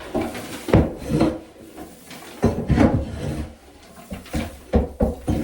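A hand tool scraping and knocking against the wooden boards of a chicken coop, a run of irregular scrapes and sharp knocks as old bedding and droppings are cleared out of the upper boxes.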